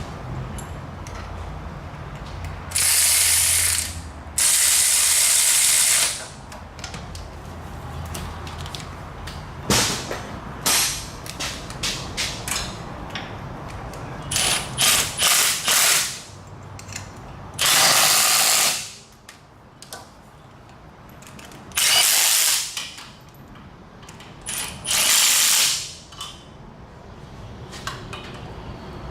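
Air ratchet running in bursts of about a second, about six times, with quick short stutters in between.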